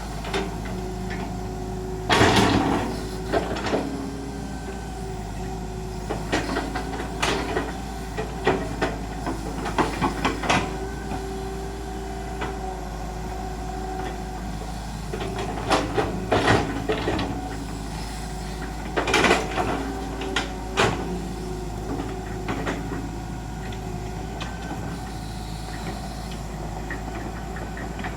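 Excavator's diesel engine running steadily, with clusters of metallic clanks and knocks at intervals as the machine works.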